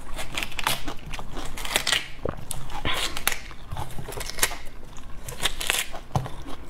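A person chewing juicy mini watermelon flesh, with wet crunching and many short mouth clicks and crackles.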